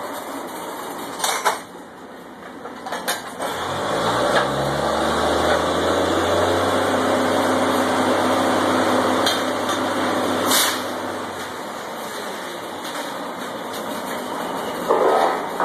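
A drilling rig's engine revs up about four seconds in, runs steadily under load for several seconds, then drops back. Sharp metallic clanks from the heavy pipe tongs being swung and latched around the drill pipe come a few times, the loudest one about ten and a half seconds in.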